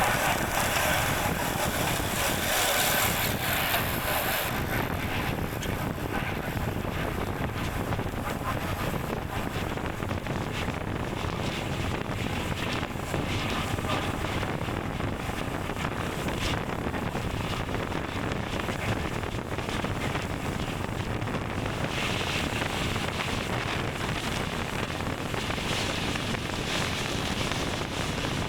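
Wind rushing over the microphone of a camera on a moving road bicycle, steady throughout.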